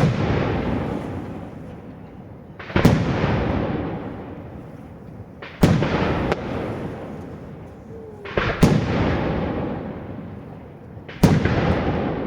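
Daytime fireworks shells bursting: five loud bangs, each about three seconds after the last, each trailing off in a long echo.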